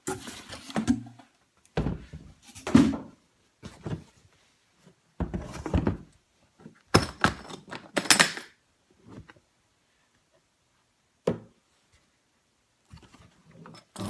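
Cardboard box and plastic air-pillow packaging being handled and cleared away: a series of separate rustles and knocks with quiet gaps between them.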